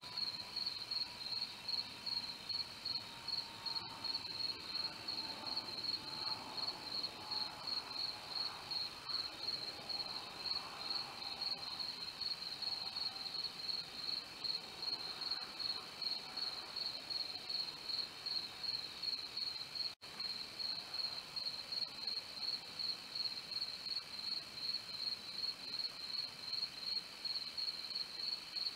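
Night insects, crickets, chirping in a steady, evenly pulsing high-pitched rhythm. A faint tone slowly falls in pitch through the first half.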